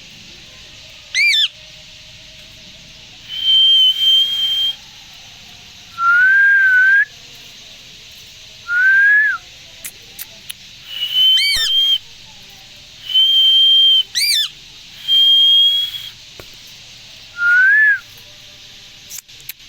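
Indian green parrot whistling: a series of clear whistled notes, some held level and high, some shorter and lower, rising at the end, mixed with a few sharp chirps that sweep steeply up or down.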